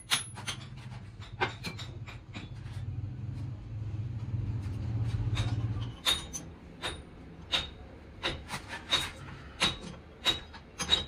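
Sharp, ringing metal clicks and clinks from hand work on a lathe's tool post, settling into a steady series about one every two-thirds of a second in the second half. A low hum runs underneath for about the first six seconds, then stops.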